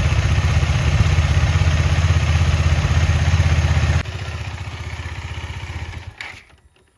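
KTM Duke 250's single-cylinder engine running steadily. About four seconds in the sound drops sharply in level, then dies away about six seconds in.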